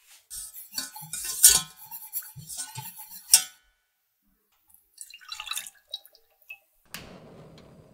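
Spatula scraping and tapping cocoa powder through a wire-mesh sieve against a stainless steel saucepan: a quick run of scrapes and metal taps, two of them sharper and louder. A few softer clicks follow, and near the end milk pours into the pan with a steady splashing that fades.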